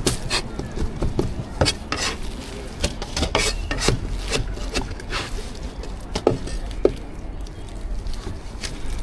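Irregular scraping and clinking of utensils against a bowl as braised food is tossed with seasoning sauce.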